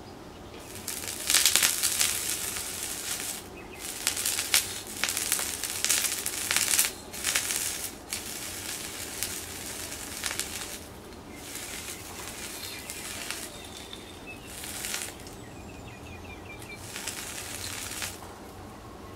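A sausage hissing and sizzling on molten aluminium as tongs hold it against the hot metal, in surges of one to three seconds, loudest about a second and a half in.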